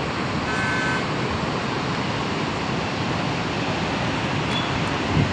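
Steady rushing of Krishna River water released through the open spillway gates of Srisailam Dam, with a brief high tone about half a second in.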